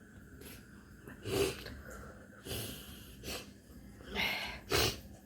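A woman blowing her nose hard in about five short forceful bursts, the loudest about a second and a half in, trying to clear thick mucus that won't come out.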